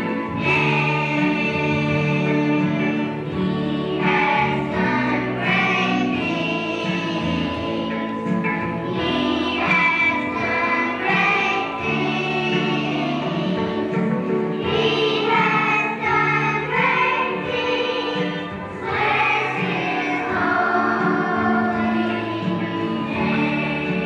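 Children's choir singing a song over a steady instrumental accompaniment.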